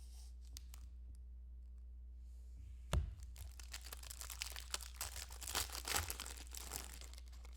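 A foil trading-card pack is torn open with a sharp crack about three seconds in, followed by several seconds of the wrapper crinkling.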